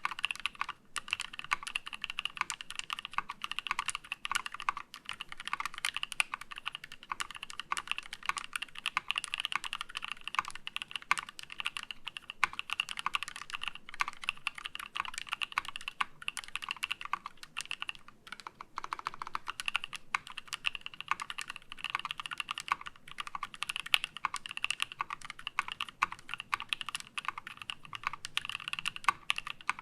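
Steady fast typing on a KEY65 mechanical keyboard with lubed NK Cream linear switches in a titanium plate and HammerWorks CRP Desko keycaps: a dense run of key clicks, with brief pauses about a second in and again around 18 seconds.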